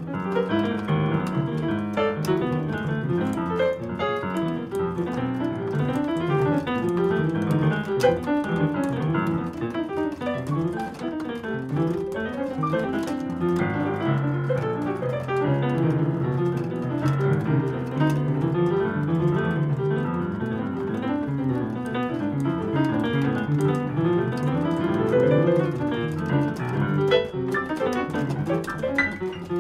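Digital stage piano played with both hands in a continuous stream of quick notes, without a break.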